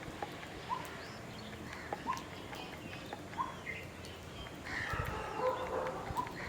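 Birds calling: one short note repeats about every second and a half, and a louder burst of mixed calls comes near the end.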